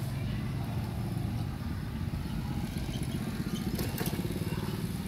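A small engine running steadily at idle, a low even rumble with a fast regular pulse.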